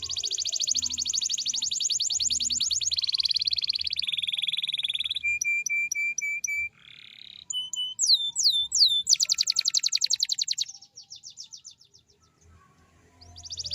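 Domestic canary singing in long, rapid rolling trills, then a run of about five repeated notes a second, a few falling whistled sweeps and more fast trills. It pauses briefly near the end before another trill starts.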